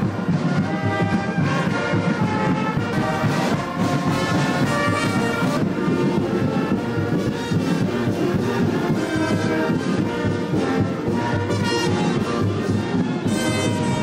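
Orchestral music led by brass, playing held notes that change steadily.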